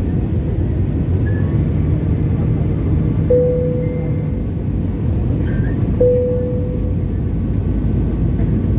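Steady cabin noise of an Airbus A320 on its descent, engines and airflow heard from inside the cabin at a window seat. Two short ringing tones cut through it, about three seconds in and again about six seconds in, each fading over about a second.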